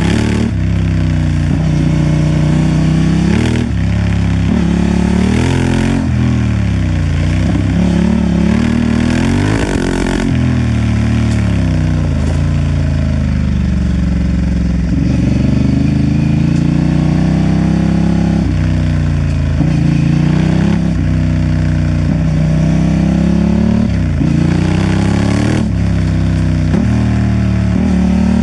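Honda Transalp XL750's parallel-twin engine being ridden, its pitch rising and falling over and over as the throttle opens and closes and the gears change, over a steady hiss.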